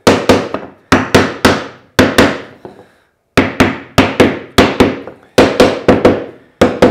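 Claw hammer striking a small wooden strip on a workbench in a steady run of sharp blows, about three a second. Each blow rings briefly, and there is a short pause about halfway.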